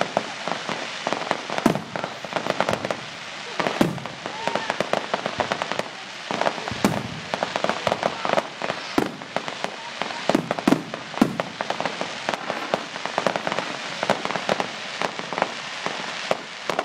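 Fireworks display: aerial shells bursting with a string of sharp bangs and dense crackling between them.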